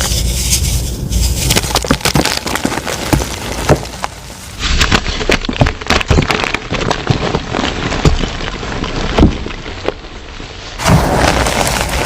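Soft reformed gym chalk blocks being crushed and crumbling into powder: dense crackling and crunching made of many small clicks. The sound changes abruptly about a third of the way in and again near the end, as separate clips are spliced together.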